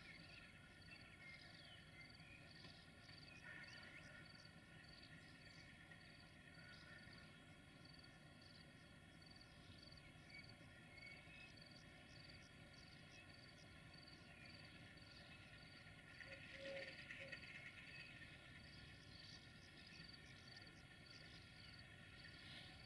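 Faint outdoor ambience: a high insect chirp repeating evenly about twice a second, with scattered bird chirps over a low background hum.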